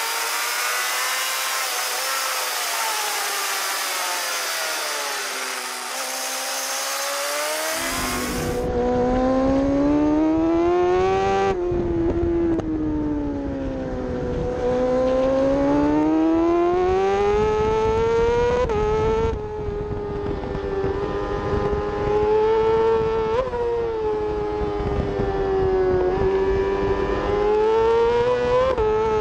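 Onboard sound of a J-GP2 600cc four-stroke racing motorcycle engine at high revs, its pitch climbing as it accelerates and sweeping down as it slows for corners, with a few sharp breaks at gear changes. The sound changes abruptly about eight seconds in.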